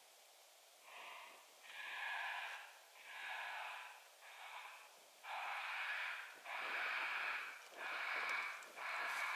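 Raccoon call played through a FOXPRO electronic predator caller: a string of about eight short squalls, each just under a second long, louder from about five seconds in.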